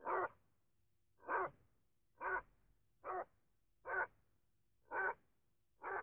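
A dog barking in a steady series of short single barks, about one a second, seven in all.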